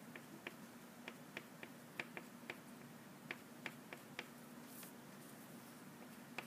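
Black crayon making short, quick strokes on paper: faint, irregular ticks and scratches, about fifteen of them, over a low steady hum.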